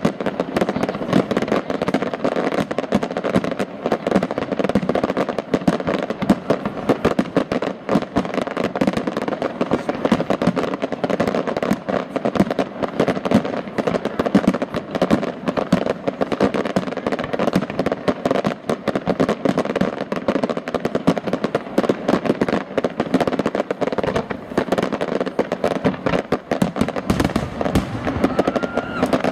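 Professional fireworks display: aerial shells and low-level effects bursting in a dense, unbroken string of bangs and pops, many a second.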